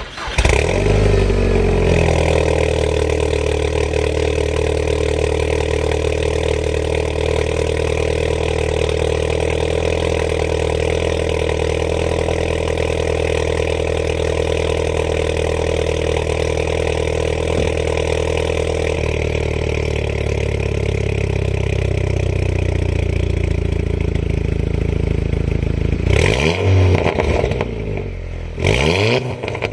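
Turbocharged four-cylinder car engine starting up and idling steadily; the idle drops to a lower, settled speed about two-thirds of the way through, and then the throttle is blipped twice near the end, each rev rising and falling.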